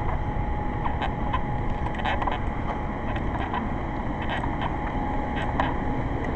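Wind buffeting the microphone outdoors, a steady low rumble, with scattered light clicks throughout.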